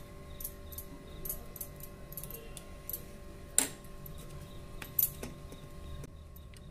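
Light clicks and clinks of a steel spoon and eggplant slices against steel dishes as masala paste is spread and slices are handled, with two sharper clinks about three and a half and five seconds in. A steady low hum runs underneath.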